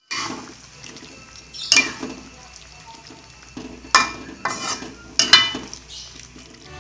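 Spatula stirring shrimp and potatoes in a wok of thick chili sauce: a handful of separate scrapes and knocks against the pan, over a faint sizzle of the simmering sauce.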